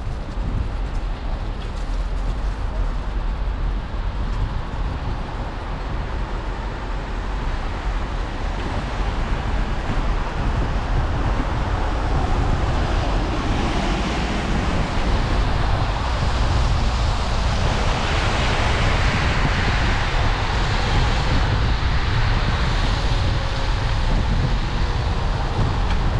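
Wind rumbling on a bicycle-mounted action camera's microphone, with the steady wet hiss of tyres rolling over rain-soaked brick paving. The hiss grows louder about halfway through and stays up.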